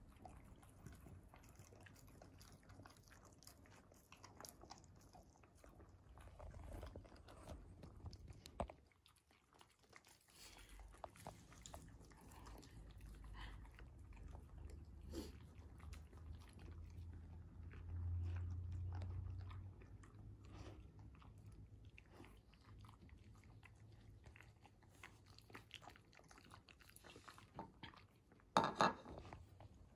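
Akita dogs chewing pieces of roasted sweet potato, with many small mouth clicks, and a brief louder sound near the end.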